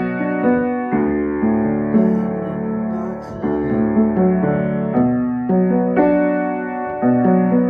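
Upright piano played by hand: chords struck about once a second, each left to ring into the next.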